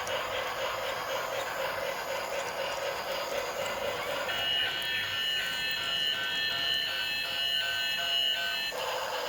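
Electronic sound chip of a battery-powered toy train set. A tinny wavering toy tune gives way, about four seconds in, to a steady high electronic alarm-like beeping that lasts about four seconds and cuts off suddenly.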